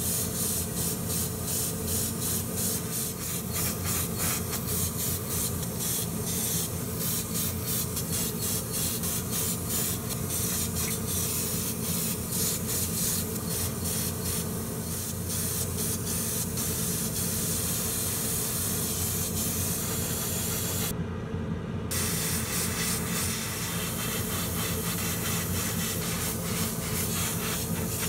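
Gravity-feed airbrush spraying paint in many short hissing bursts, with the hiss stopping for about a second roughly three quarters of the way through. A steady low hum runs underneath.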